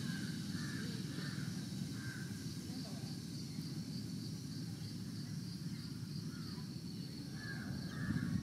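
Outdoor ambience: a steady low rumble, with a faint high insect-like chirp repeating about two or three times a second and short bird calls near the start and again near the end.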